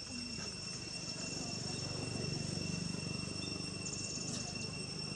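Insects droning steadily in two even high tones, with a brief fast trill about four seconds in, over a low background rumble.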